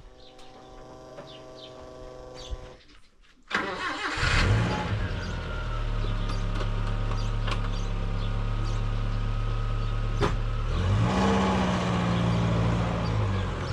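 An engine starts about three and a half seconds in and then runs steadily, its pitch shifting up a little near eleven seconds; a faint steady hum comes before it.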